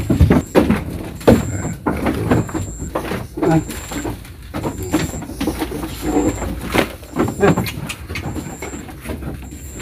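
Dry goat concentrate poured from a plastic bucket into a wooden trough, the feed rattling and knocking against the boards in irregular bursts. A faint high chirp repeats about once a second.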